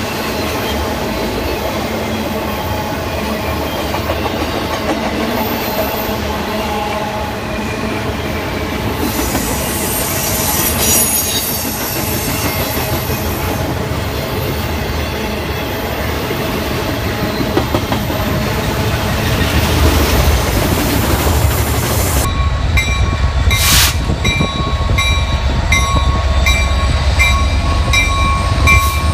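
Intermodal freight train cars rolling past, with wheel squeal and rail clatter. About 22 seconds in, this gives way to a Norfolk Southern SD80MAC diesel locomotive passing close by, its 20-cylinder EMD engine making a strong low rumble, with a steady pulsing high tone over it.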